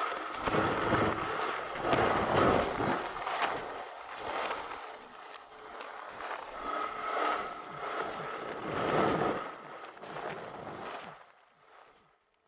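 Wind rushing over the camera microphone of a motorcycle riding at speed, in uneven gusts, with engine and road noise underneath. The wind dies down briefly near the end.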